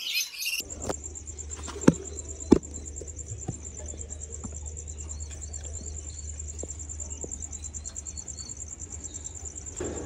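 Cricket trilling steadily, a fast, even pulsing high tone, over a low hum, with two sharp clicks about two seconds in.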